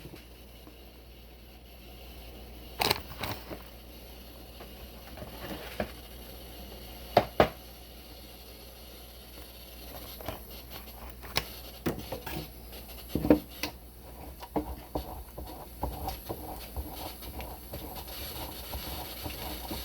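Scattered knocks and clicks of kitchen utensils and containers being handled, a few sharp knocks in the first half and busier small clicks and scrapes in the second half.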